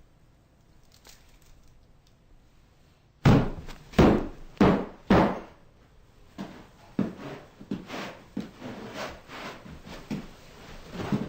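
Four heavy thumps about half a second apart, then a run of lighter thuds and rubbing: a lump under freshly laid carpet being pounded and flattened.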